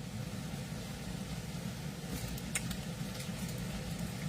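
Heavy rain heard from indoors: a steady low rumble with a faint hiss and a few light ticks.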